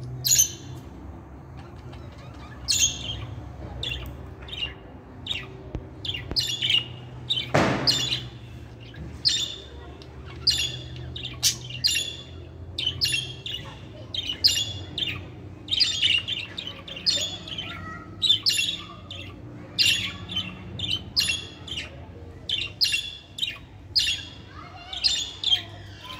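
Budgerigars chirping, a quick string of short, high chirps, with one louder burst about eight seconds in.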